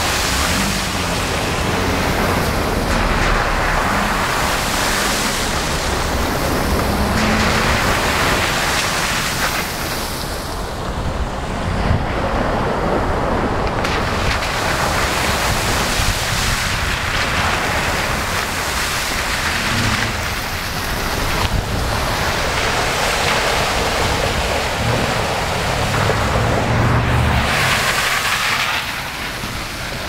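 Jeep Wranglers driving one after another through a shallow river crossing: the tyres throw up spray in repeated surges of splashing over the low run of their engines.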